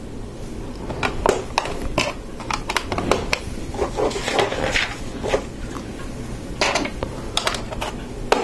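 Plastic LEGO pieces clicking and clattering as they are handled and pressed onto a model: a string of sharp clicks, busiest in the first half and again near the end.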